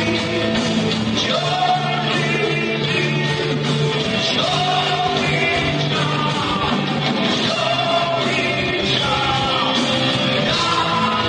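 A heavy metal band playing live, with electric guitar, bass and drums, and a voice singing long held notes over it.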